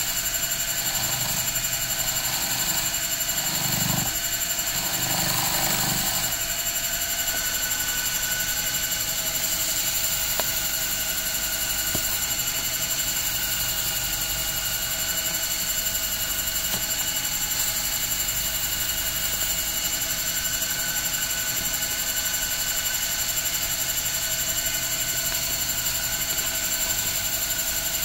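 Small cue lathe running steadily, its motor giving a constant hum with several steady whining tones, while a leather cue tip is sanded as it spins. A few brief low rubbing sounds come in the first several seconds.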